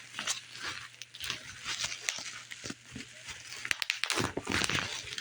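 Plastic bubble wrap being pulled and peeled off a cardboard box, a run of irregular crinkling, rustling and small crackles.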